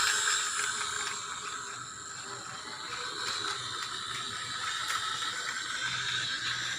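Battery-powered Tomy toy train with a replacement motor running around a small curved plastic track: a steady gear whir with faint fine clicking, a little louder at first and easing off within the first second.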